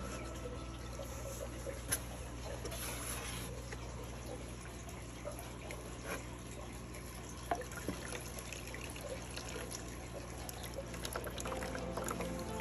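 Water being scooped and poured back with a cut-down plastic jug in a shallow foam box, splashing and trickling, with a couple of sharp knocks, about two seconds in and again past seven seconds.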